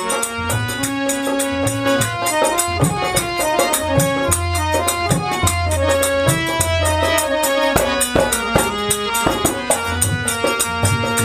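Instrumental interlude of an Indian folk song: a harmonium plays the melody in held reedy notes over a steady dholak rhythm with deep bass strokes, and small hand cymbals (manjira) click along with the beat.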